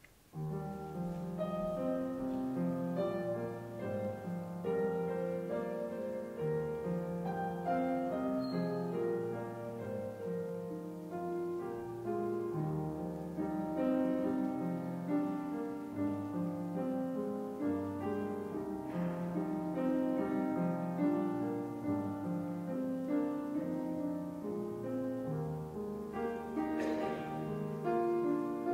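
Solo piano playing a slow piece of held chords under a melody, starting abruptly about half a second in.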